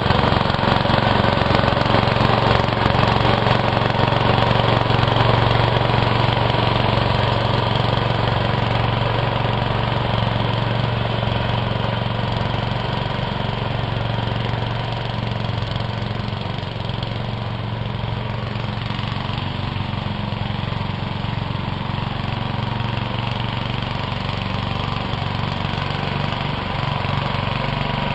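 A 1999 MTD Yard Machines riding mower's 1994 12.5 hp Briggs & Stratton engine running steadily while mowing. It grows fainter about halfway through as the tractor moves away, then a little louder again near the end.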